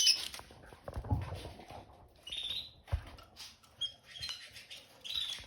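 Canaries in a cage giving short high chirps every second or so, with a few soft knocks and scuffles of birds moving about.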